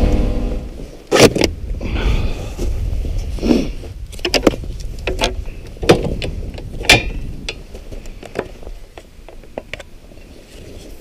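A snowmobile engine's running dies away in the first second. Then come scattered clicks, knocks and plastic clatter as gear, including an ice auger, is handled on the sled.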